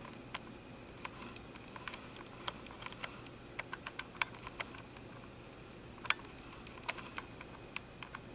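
Faint, irregular clicks and ticks from a camera being handled while its focus keeps hunting, over a low room hiss. A few louder clicks stand out, one about six seconds in.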